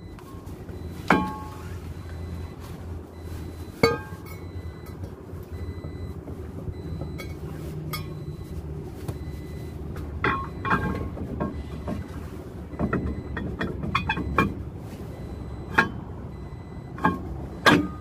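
Toyota Land Cruiser pickup's cast-iron rear brake drum being fitted back over new brake shoes and the hub: a series of sharp metallic clinks and knocks with short ringing, a few early on and then clustered in the second half as the drum is worked into place.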